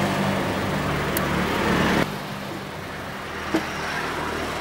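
A steady low engine hum, like a motor vehicle idling, that cuts off abruptly about two seconds in. Quieter background noise follows, with a single light click.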